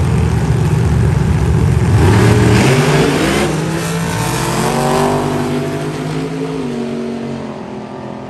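Drag racing cars, a supercharged vintage gasser and a dragster, rumbling on the starting line and then launching at full throttle: the engine pitch climbs steeply about two seconds in, then falls and fades as the cars run away down the strip.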